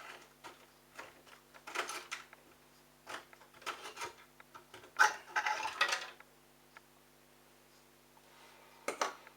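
Scattered clicks, knocks and clattering of small hard objects being handled, in several short bursts, over a faint steady hum.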